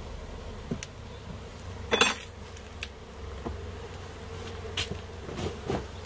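Honeybees buzzing steadily around an open hive, with a few sharp knocks of wooden hive boxes and frames being handled, the loudest about two seconds in.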